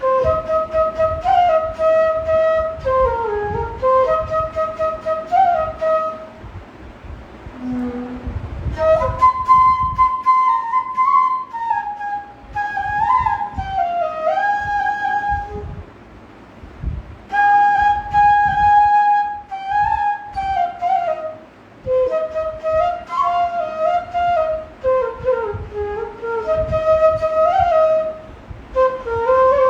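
Bansuri, the Indian bamboo flute, playing a melody in phrases of a few seconds each, with slides and ornaments between notes and short breaths between phrases.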